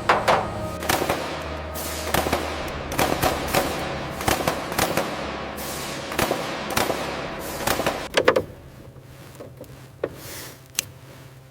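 A quick, irregular series of sharp knocks and bangs, several a second, each with a short ringing tail; they thin out to a few faint knocks after about eight seconds.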